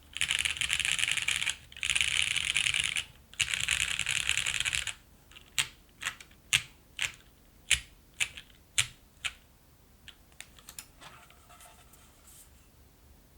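Custom top-mount mechanical keyboard with lubed Cherry Hyperglide MX Brown tactile switches, a polypropylene plate and GMK keycaps, typed on fast in three quick bursts. It then slows to single, separate key presses about twice a second, which fade to a few light taps near the end.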